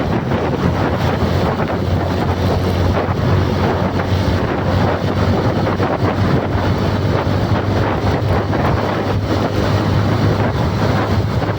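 Loud wind buffeting the microphone, a steady rushing noise with a constant low hum underneath.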